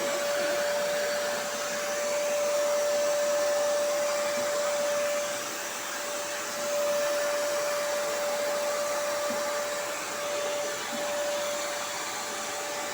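Household vacuum cleaner running steadily: a rush of air with a steady whine from the motor.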